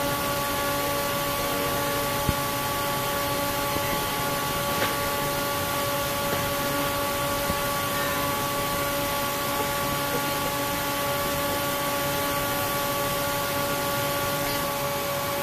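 Steady cockpit noise inside a KC-135R Stratotanker on the ground: an even rushing hiss with a constant hum of several tones from the aircraft's machinery and air systems, and a couple of faint clicks.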